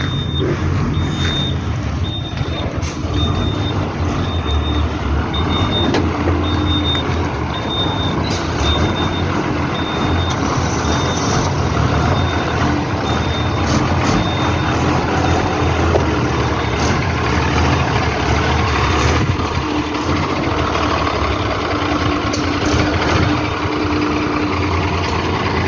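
Truck engine running during a road test with a freshly rebuilt Eaton 5205 gearbox. A reversing alarm beeps at a steady rate a little over once a second and stops about nine seconds in.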